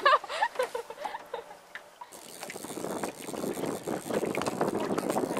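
A woman's laughter trailing off in the first second or so. After a cut, a steady rustling haze of wind and lapping water around a small open boat that slowly grows louder.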